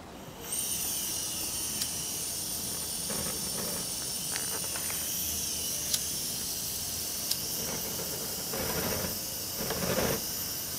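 Blue butane cartridge torch hissing steadily as its gas is turned on, the hiss starting suddenly about half a second in. A few sharp clicks, from a lighter held at the nozzle, sound over it.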